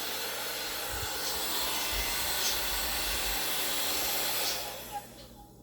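Cordless mini hand vacuum running steadily with a rushing whine. It is switched off about four and a half seconds in, and the motor winds down to quiet.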